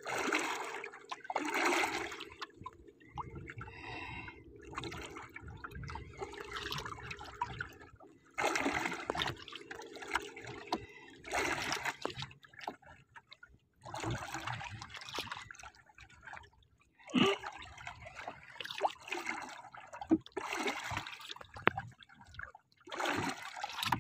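Seawater sloshing and splashing against the hull of a small boat in repeated surges, one every one to three seconds. A faint steady hum runs under the first eight seconds or so.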